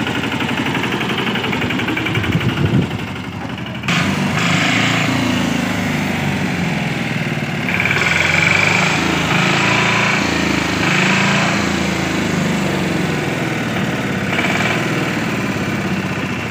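Patpat two-wheel tractor engine running steadily as the machine is driven, with an abrupt change in its sound about four seconds in.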